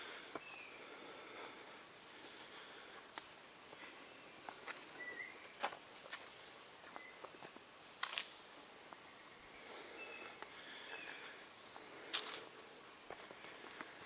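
Footsteps on a rainforest trail, soft and scattered, with three sharper knocks, over a steady high-pitched insect drone.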